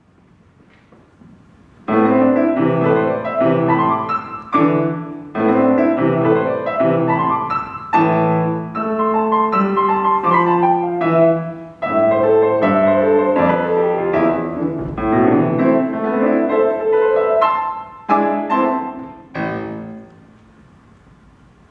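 A grand piano playing a short, simple piece, starting about two seconds in, with the last notes ringing out and dying away near the end.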